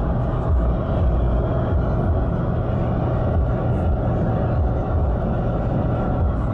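Steady road and engine rumble heard inside the cabin of a vehicle driving at speed, a low drone with no change in pitch.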